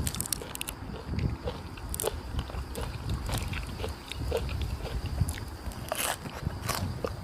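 Close-miked chewing and biting while eating: repeated wet mouth clicks and smacks at an irregular pace, over a low rumble.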